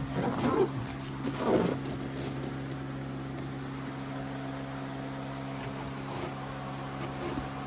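A steady low mechanical hum of several fixed tones, with two brief louder noises in the first two seconds.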